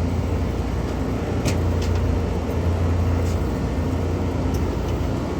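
A steady low machine hum, with a few faint sharp ticks about one and a half, two, three and a quarter, and four and a half seconds in.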